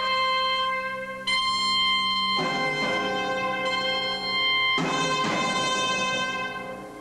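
Contemporary chamber-ensemble music: long held notes, with fuller chords entering about two and a half and again about five seconds in.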